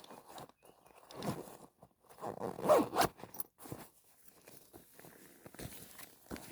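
A zipper being pulled in a few short strokes, the loudest just before three seconds in.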